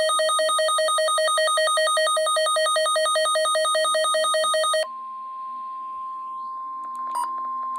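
Weather alert radio sounding an emergency alarm: a rapidly alternating electronic warble for about five seconds, then it switches to the steady single-pitch NOAA Weather Radio 1050 Hz attention tone that precedes an emergency broadcast. A couple of short beeps sound over the tone near the end.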